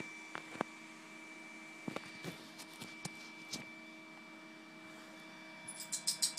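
Quiet room tone with a steady faint hum, a few scattered soft clicks and knocks, and a quick run of sharp, rapid high clicks near the end.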